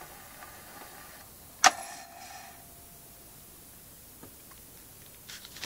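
HMV model 109 wind-up gramophone: faint surface hiss of the steel needle in the groove of a shellac 78, then, about a second and a half in, a sharp click as the soundbox is lifted off the record, with a short ringing tone after it. A few small handling clicks follow near the end.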